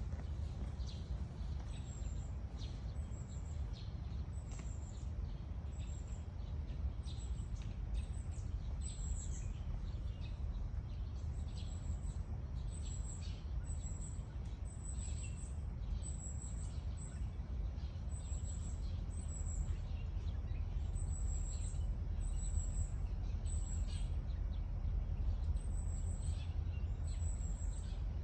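Small birds chirping: many short, high-pitched chirps in quick series, repeating throughout, over a steady low rumble.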